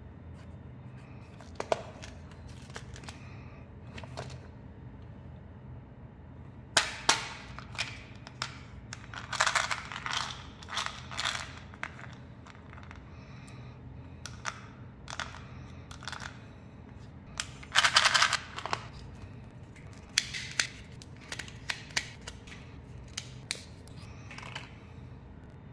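Hard plastic candy packaging handled close to the microphone: sharp clicks from the flip-top lid of an Ice Breakers Ice Cubes gum container, and short bursts of rapid clicking as the gum pieces rattle in the plastic. Near the end, a clear plastic eyeball-candy capsule is handled.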